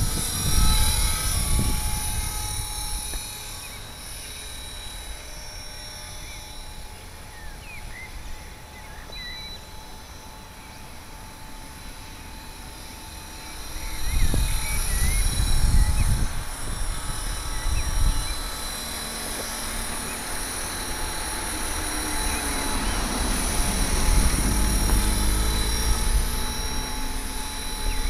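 HK 450 Pro TT radio-controlled helicopter running with its rotor head at about 2200 rpm: a steady whine with an unhealthy noise in it, the sign of a defective main shaft ball bearing. Low rushing buffets come and go at the start, around the middle and again near the end.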